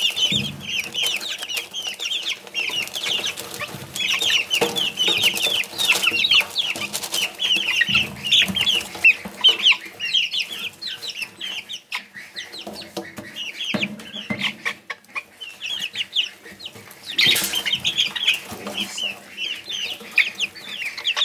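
A brood of young bantam chickens peeping without a break: many short, high, downward-sliding peeps overlap. Faint scratching and pecking rustles in wood shavings underneath.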